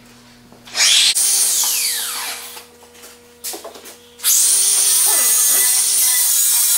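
Electric angle grinder briefly run up, then spinning down with a falling whine, followed by a few knocks against the metal. It is then started again and runs steadily.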